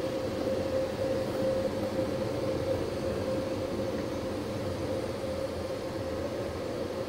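Ryko Softgloss Maxx car wash machinery running with a steady drone and a constant hum, heard muffled from inside a vehicle's cab.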